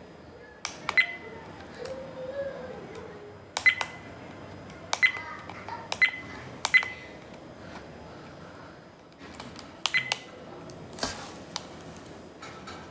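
A string of sharp clicks, each with a short high ringing beep, coming irregularly about eight times.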